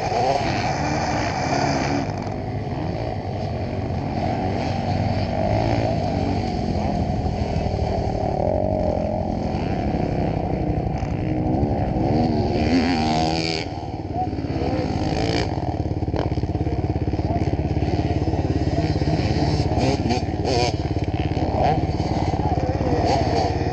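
Dirt bike engines revving on the motocross track, their pitch rising and falling again and again as riders work the throttle through jumps and corners, over a steady low engine rumble.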